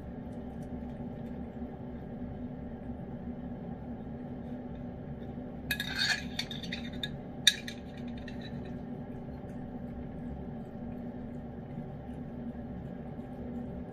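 A metal spoon scraping and clinking against a glazed ceramic dish, scooping wet cat food: a short run of scrapes and clinks about six seconds in, then one sharp clink a moment later. A steady low hum runs underneath.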